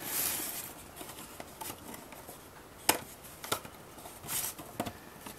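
Laser-cut plywood box pieces fitted together by hand: a few light wooden clicks and taps as the tabs on the sides are worked into the slots of the thin plywood top, with some rustling between.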